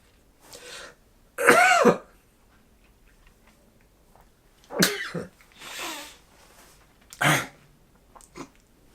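A man in an uncontrollable sneezing fit: three explosive sneezes, the loudest about a second and a half in and the others near five and seven seconds, with breaths drawn in between.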